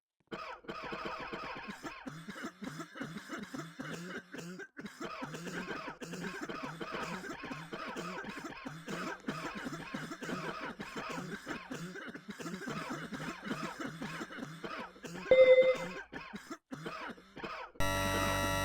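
Repeated, continuous coughing, with a brief loud tone about fifteen seconds in. Near the end it cuts suddenly to a steady buzzing noise with several held tones.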